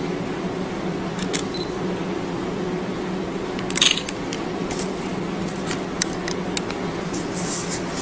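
Steady low hum of room noise with scattered light clicks of a surgical needle holder handling suture, and one louder short rustle about four seconds in.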